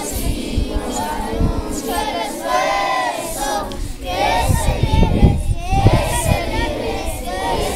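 Group of schoolchildren singing together in unison, their voices overlapping, with irregular low rumbles underneath.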